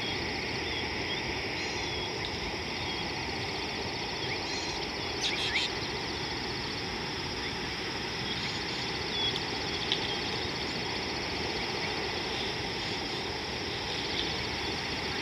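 Outdoor river ambience: a steady high-pitched pulsing chorus of calling animals over a low steady rush, with a short sharp call about five seconds in and a single click near ten seconds.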